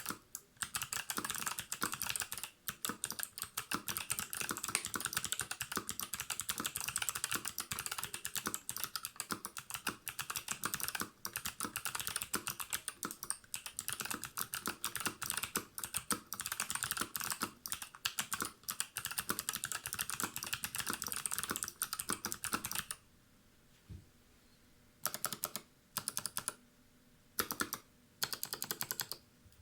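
Varmilo VA88 mechanical keyboard fitted with Kailh Box White clicky switches, typed on quickly and without a break, a dense run of crisp key clicks. About three quarters of the way through, the typing turns into short bursts of keystrokes with pauses between them.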